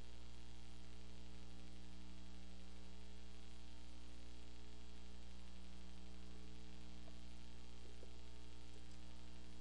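Steady low electrical hum with an even background hiss.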